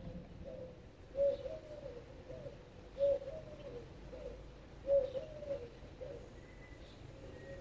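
A dove cooing in low, repeated phrases: three louder calls about two seconds apart, each a strong note followed by a few softer ones.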